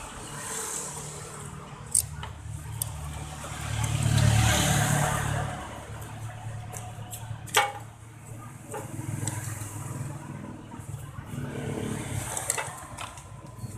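An engine running, growing louder for a couple of seconds about four seconds in and then settling back, with a few sharp clicks or knocks.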